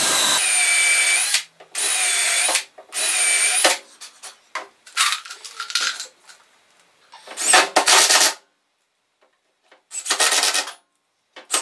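Power drill driving a row of screws through a glued block into plywood, run in a series of short bursts with a steady whine. The first three bursts last about a second each, then shorter ones follow with pauses between.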